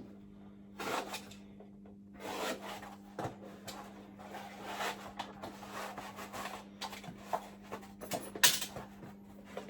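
Irregular rasping and rubbing strokes from a coated mineral-wool fire batt being cut and handled, over a faint steady hum.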